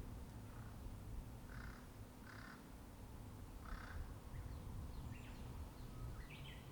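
A crow cawing, a few short harsh caws. Near the end a small songbird chirps briefly, over a steady low rumble of distant road traffic.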